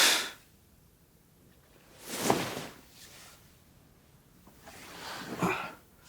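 A person breathing heavily: three loud, rushing breaths about two to three seconds apart, the later two with a slight catch of voice.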